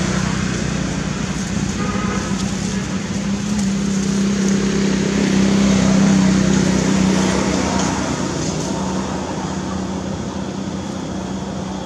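A steady motor hum over a broad hiss, growing louder toward the middle and easing off again.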